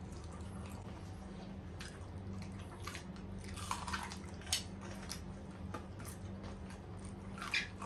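Eating sounds: scattered short bites, chews and crunches of fried food with occasional clicks of utensils or dishes, over a steady low hum.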